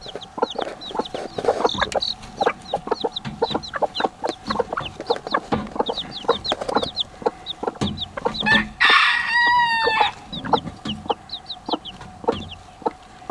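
Baby chicks peeping, with many short high chirps throughout, while bantam hens cluck. A little past the middle a chicken gives one loud call lasting about a second and a half, likely a rooster crowing.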